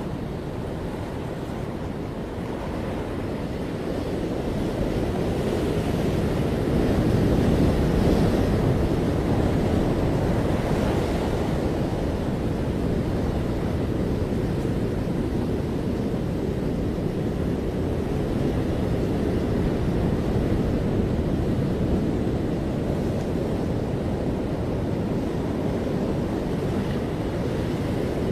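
Ocean surf washing onto a beach: a steady rushing of waves that swells about a third of the way in, then settles, with some wind buffeting the microphone.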